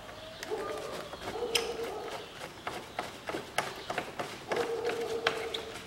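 Unscrewing the clamp on the intake air duct of a Peugeot 407's engine: a run of clicks and ticks, with a steady whine of about a second, once near the start and again near the end.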